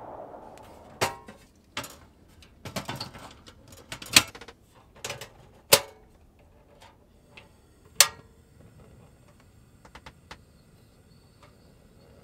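A Marksman portable gas camping stove being readied and lit: a run of clicks and clacks from its canister lock lever and ignition knob, the loudest about eight seconds in as the ignition knob is turned, then a faint steady hiss of gas from the lit burner.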